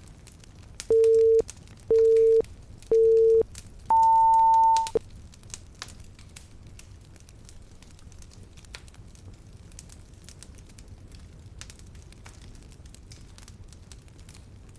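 Timer countdown beeps: three short low beeps about a second apart, then one longer, higher beep. After that, a fireplace crackles softly with scattered pops.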